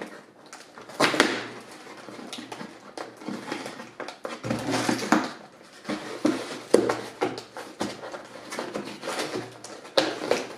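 Cardboard box being worked open by hand: irregular scraping, rustling and clicks from fingers prying at the flap, with a few longer rasping bursts.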